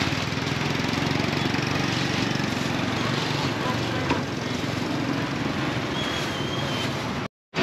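A small engine running steadily at a low, rapid pulse over street-side noise. The sound cuts out briefly near the end.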